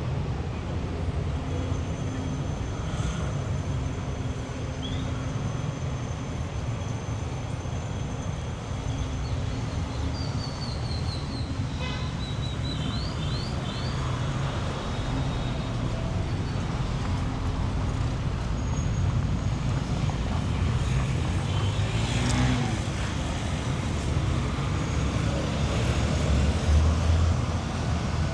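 City street traffic: a steady rumble of engines and tyres, with one vehicle passing close about three quarters of the way through and getting louder near the end. A few short high chirps come about a third of the way in.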